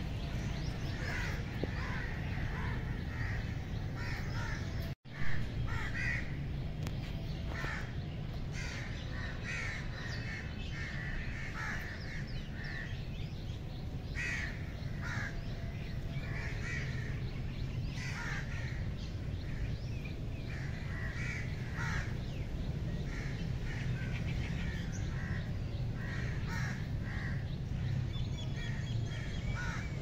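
Many birds calling in a dense, irregular chorus of short calls, several a second, over a steady low rumble. The sound drops out for an instant about five seconds in.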